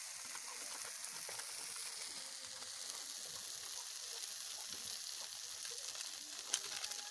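Spice paste (masala) sizzling in hot oil in a steel kadai, stirred with a metal spatula that scrapes the pan now and then. There is a single sharp tap about six and a half seconds in.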